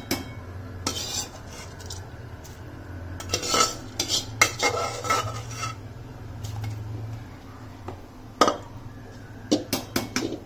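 Metal spoon knocking and scraping against a cooking pot as rice is mixed in, in irregular clusters of clinks, the busiest stretch about three and a half to five and a half seconds in.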